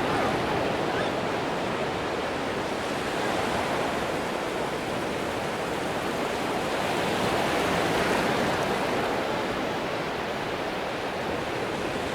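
Ocean surf washing onto a sandy beach: a steady rush of small breaking waves that swells a little about eight seconds in.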